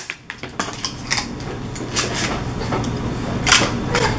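Light metallic clinks and taps from a metal muffin tin as paper cupcake liners are set into its cups. There are several separate taps, and the loudest comes about three and a half seconds in.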